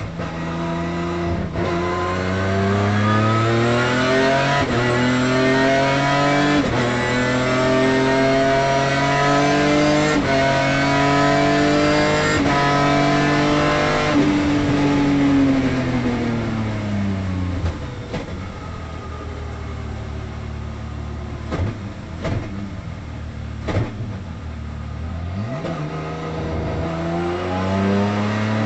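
Race car engine heard from inside the cockpit, accelerating hard through the gears: the pitch climbs and drops back at each upshift. It then falls away in one long glide as the car brakes and changes down, goes quieter with a few short blips, and climbs again near the end.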